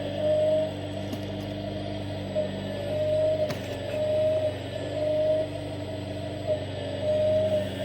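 Hydraulic pump of a 1/14-scale RC excavator running with a steady electric hum. A higher whine swells in short pulses about once a second, typical of the pump loading up as the hydraulic functions are worked. A single sharp click comes about three and a half seconds in.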